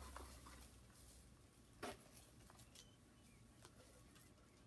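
Faint rustling of shredded paper box filler as hands dig through it, with scattered small crackles and one sharper one about two seconds in.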